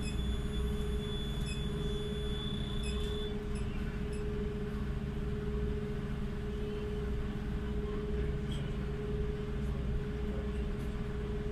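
Steady hum and low rumble of a car ferry's machinery under way, with a constant mid-pitched drone over it. A thin high tone fades out about three seconds in.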